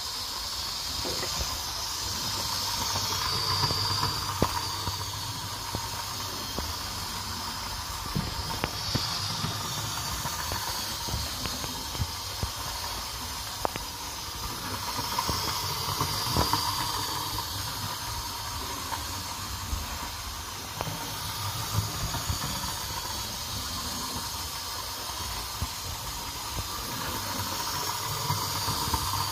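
Hornby 9F 2-10-0 model locomotive running on track: a steady whirring of its electric motor and gears with the wheels rolling on the rails, and irregular clicks over the rail joints. The sound swells and fades about every twelve seconds as the locomotive comes round the oval past the microphone.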